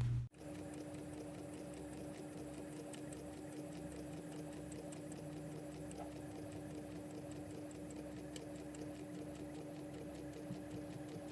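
Inkjet printer printing a sheet on glossy photo paper: a steady motor hum with faint, regular ticking from the print mechanism.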